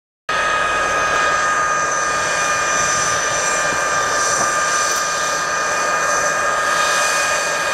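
Single Ivchenko AI-25TL turbofan of an L-39ZA Albatros jet trainer running at taxi power as it rolls along the apron: a loud, steady jet whine of several high held tones over a rushing roar. It cuts in sharply just after the start and stops abruptly at the end.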